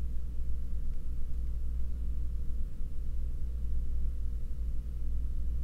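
Steady low rumble with a faint hum over it, unchanging throughout.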